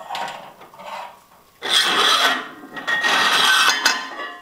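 Cast iron weight plates scraping along a steel barbell sleeve as they are slid by hand, in three rasping pushes with a faint metallic ring.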